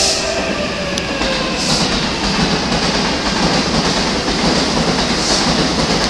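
JR East E233-3000 series electric train rolling slowly along the platform and braking to a stop: steady wheel-on-rail rumble, a motor whine falling away in the first second, and short hissing swells.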